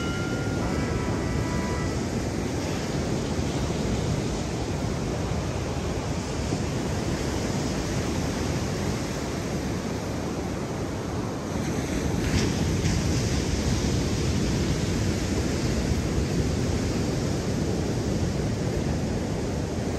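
Ocean surf washing steadily on the beach, with wind rumbling on the microphone.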